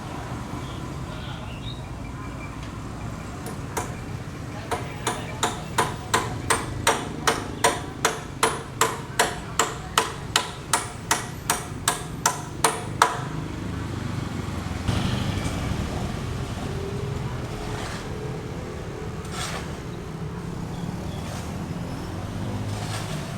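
Hammer blows at a building site: a steady run of about two dozen sharp strikes, about three a second, that stops about halfway through, over a steady low background rumble.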